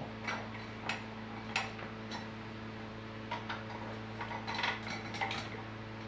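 Scattered light metallic clicks and clinks of a motorcycle rear wheel, axle spacer and swingarm parts knocking together as the wheel is lifted into place, over a steady low hum.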